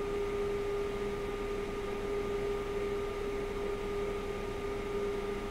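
Steady electrical hum from bench equipment: a constant buzzing tone with a fainter higher whine above it, unchanging throughout.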